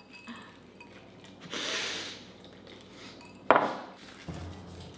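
Hands rummaging in a woven basket and handling paper cards: a soft rustle, then a single sharp knock on the wooden tabletop and a dull thump.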